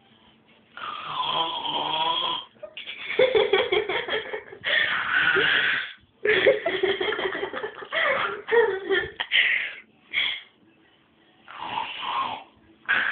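A person snoring, a series of rough, rasping breaths each a second or two long, with stifled giggling mixed in.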